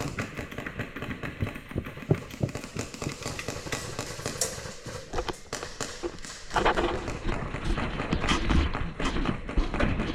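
A run of irregular taps, clicks and thuds, growing denser and louder about six and a half seconds in.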